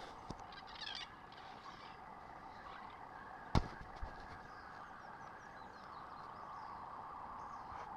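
Banded mongooses making high twittering chirps over a steady background hiss, with one sharp click about three and a half seconds in.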